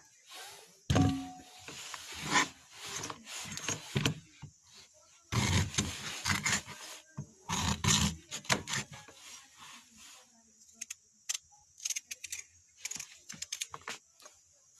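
Knife cutting vegetables: irregular crisp chopping and slicing strokes, heavier and denser in the first half, then lighter, quicker taps.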